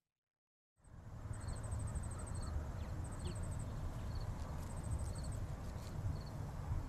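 Insects calling in short, repeated trains of rapid high ticks, with a few brief higher chirps, over a low steady rumble; the sound begins about a second in.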